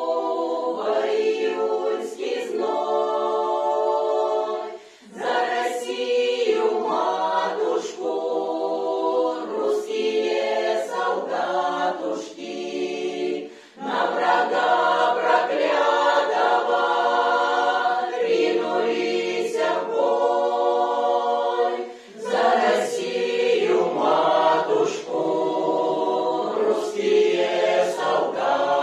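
Mixed choir of women's and men's voices singing a Russian song a cappella in long held phrases, with a short break between phrases about every eight seconds.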